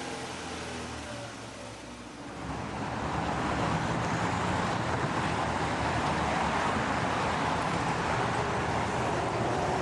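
Car engine sound with steady pitched tones, then, about two and a half seconds in, a louder steady rush of car and road noise.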